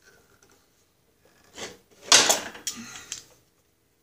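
Metal clatter of hand tools and parts being handled at a riding mower's shift lever shaft: a faint scrape, then a louder clatter about two seconds in that lasts about a second.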